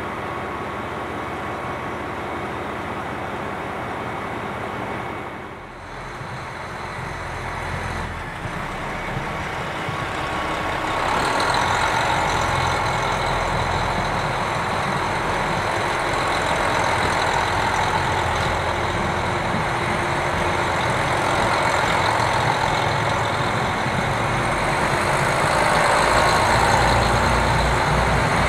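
KiHa 261 series diesel express train's engines running, dipping briefly about six seconds in and then building up over several seconds to a loud, steady level as the train gets under way.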